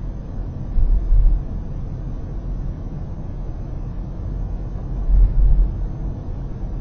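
Road noise of a car driving on an expressway, heard inside the cabin: a steady low rumble of tyres and engine, with two brief louder low thumps, about a second in and about five seconds in.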